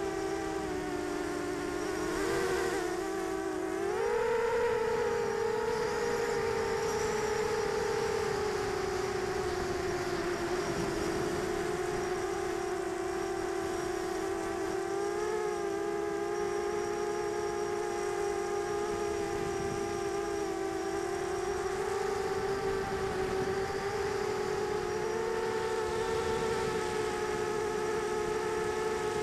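Brushless motors and propellers of a 250-size quadcopter whining steadily in flight, picked up by its onboard camera. The pitch climbs about four seconds in, sags slowly, then rises again later as the throttle changes.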